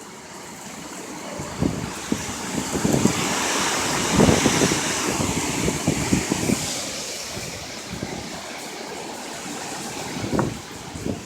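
Hurricane wind rushing in a strong gust that swells to a peak about four seconds in and then dies away, with wind buffeting the microphone.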